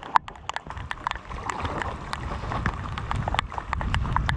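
Irregular sharp taps, several a second, of raindrops hitting the camera and the plastic kayak, over a steady low rumble of wind on the microphone and a paddle working in shallow floodwater.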